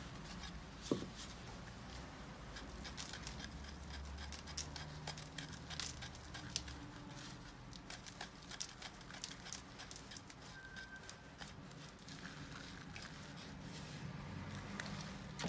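A root hook raking through a Nirekeyaki bonsai's root ball: faint, quick scratching and crackling scrapes as old soil is loosened and patters away, with a single knock about a second in.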